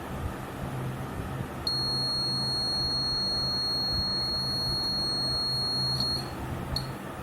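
Buzzer of a homemade transistor door-alarm circuit sounding one steady high-pitched tone for about four and a half seconds, starting about two seconds in, then a brief chirp near the end.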